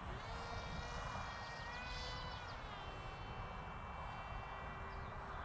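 Electric motor and propeller of an RCPowers F-22 V5 foam RC plane whining in flight. The pitch dips sharply and climbs back near the start, then settles a little lower and holds steady about halfway through.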